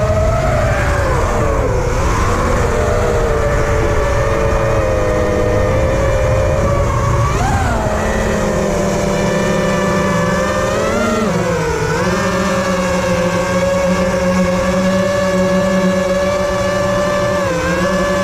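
FPV multirotor drone's electric motors whining steadily, the pitch swooping down and back up several times as the throttle changes, over a low wind rumble.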